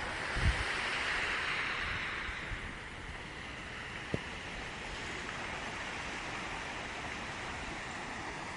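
Sea surf washing on the shore: a steady hiss of breaking waves that swells over the first couple of seconds, then eases. A brief gust of wind hits the microphone about half a second in, and there is a single click about four seconds in.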